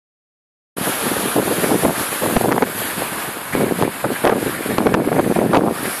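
Strong gusty wind buffeting the microphone over rough sea surf breaking against a concrete sea wall. The sound cuts in abruptly under a second in and surges unevenly with the gusts and breaking waves.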